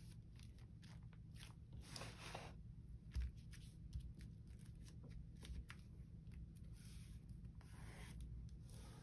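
Faint rustling and handling of paper, with a couple of soft knocks about three and four seconds in.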